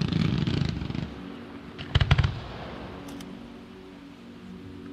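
Fireworks going off: a dense burst of crackling at the start, then a quick cluster of sharp bangs about two seconds in, and a few faint pops just after three seconds.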